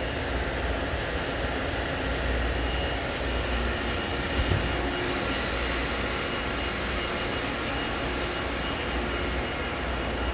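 Steady industrial background hum of a machine shop: a low rumble with a faint high whine over it, and a small knock about four and a half seconds in.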